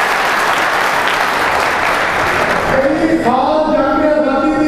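Hall audience applauding, dying away about three seconds in as a man's voice begins a drawn-out, sung-style recitation.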